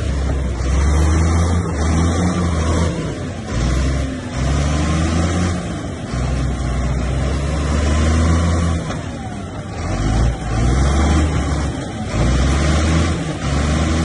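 Bulldozer's diesel engine running hard under load, its pitch and loudness dipping and rising again every few seconds as the load changes.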